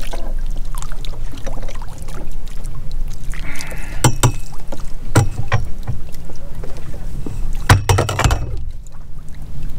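Boat hook and mooring pennant line hauled over a boat's metal bow rail, knocking and clattering against it a few times: single knocks about four and five seconds in, then a quick cluster near eight seconds. Underneath is a steady low rumble.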